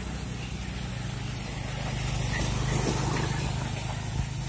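Motorcycle engine running steadily at low speed, a constant low hum with road noise over it.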